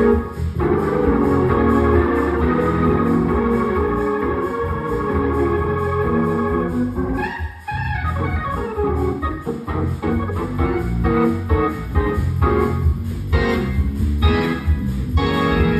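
Hammond C3 organ played through a Leslie speaker: held chords over deep bass notes, with a short sliding break about halfway through, then shorter, choppier chord strokes near the end.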